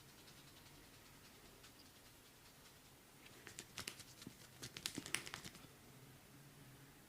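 A flurry of light pats, rubs and crackles from hands working over skin and hair during a massage, lasting about two and a half seconds in the middle and loudest near its end, against a near-silent room.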